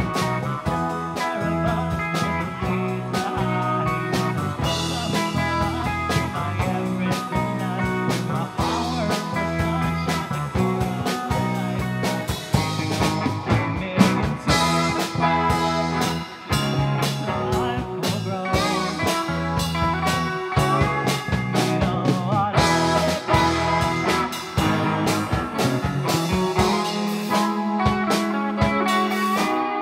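Rock band playing live: electric guitars and a drum kit, with a man singing lead into a microphone over much of it.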